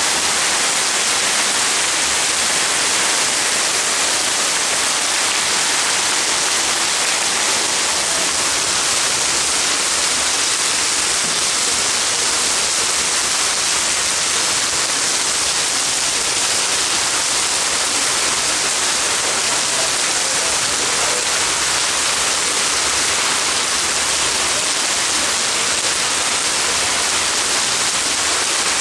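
Heavy rain in a strong wind, pouring down steadily as a dense, even hiss.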